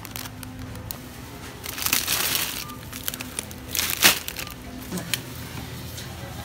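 Background music with a crinkling rustle of handling noise about two seconds in and a single sharp click about four seconds in.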